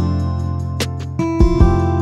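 Background music led by a strummed acoustic guitar over sustained low bass notes.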